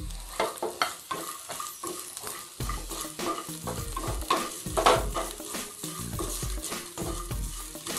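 Wooden spatula stirring and scraping raisins, green chillies and grated ginger around a small non-stick pan in hot oil, in irregular strokes and taps over a light sizzle.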